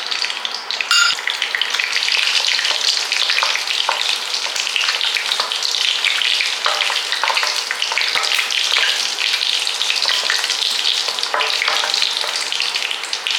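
Mustard seeds and cumin seeds spluttering in hot oil: a dense, steady crackle of many small pops as the seeds fry.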